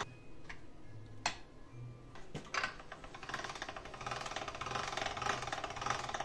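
Hand-cranked stainless steel pasta machine: a few sharp clicks as the roller-thickness knob is set, then a fast, even rattle of the gears as the crank turns and a sheet of egg-pasta dough passes through the rollers.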